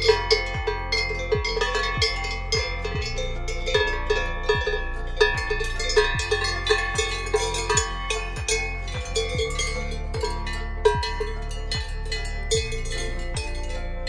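A cow's large neck bell clanking irregularly as the grazing cow moves its head, each strike ringing on. A steady low beat of background music runs underneath.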